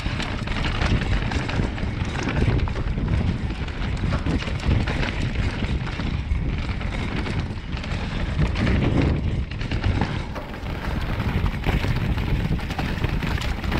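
Commencal Meta Power 29 electric mountain bike descending rough singletrack at speed: tyres and frame rattling over dirt and stones, with wind buffeting the camera's microphone.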